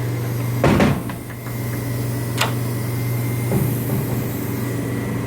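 Steady low machine hum, with a clunk just under a second in, a few small clicks, a sharp click a little past two seconds and a soft knock later on: hands handling something at the machine.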